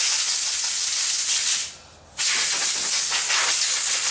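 Electric drill boring into the cast iron leg of a crawfish cooker base, running in two bursts with a short pause about halfway through.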